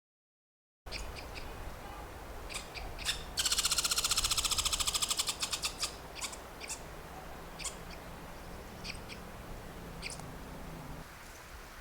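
Birds chirping in short, scattered calls, with a rapid trill about three seconds in that lasts a couple of seconds and fades away. It all sits over a faint steady background hush, after a brief moment of dead silence at the start.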